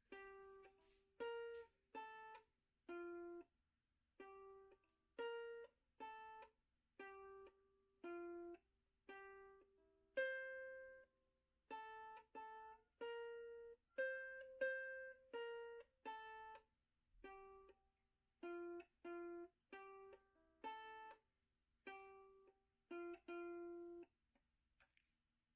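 Quiet background music: a melody of single plucked notes on a ukulele-like string instrument, about one to two notes a second, stopping near the end.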